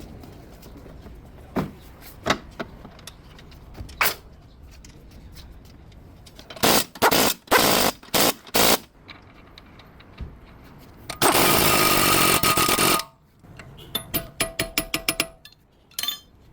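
Mechanic's tools at work on a car's front drive shaft: scattered knocks, a cluster of short loud bursts, then one loud burst of nearly two seconds, followed near the end by a quick run of clicks.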